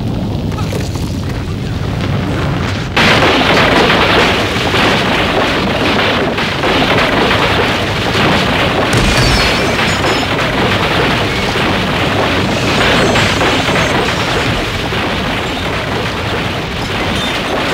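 A large palace-style building collapsing: a low rumble that jumps suddenly to a loud, continuous crashing rumble about three seconds in, with a deep thud a few seconds later.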